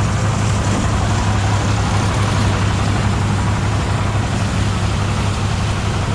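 Mobile rice threshing machine running steadily, with a strong low hum under a constant noisy hiss.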